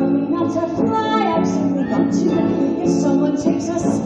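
A woman singing a musical-theatre song with instrumental accompaniment.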